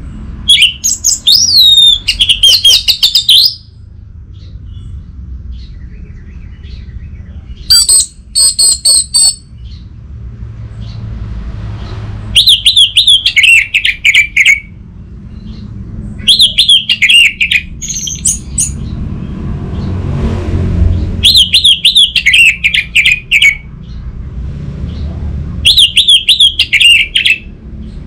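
Orange-headed thrush singing: six loud bursts of rapid, whistled notes that run downward in pitch, each about two seconds long with short pauses between. A low steady rumble runs underneath.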